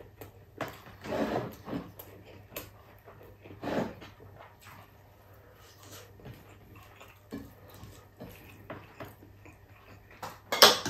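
Mukbang eating sounds: a person chewing and smacking noisily on rice and bulalo eaten by hand, with a few short bursts of mouth noise and small clicks. Near the end comes one sharp clink, the loudest sound, as the hand goes to the stainless steel soup pot.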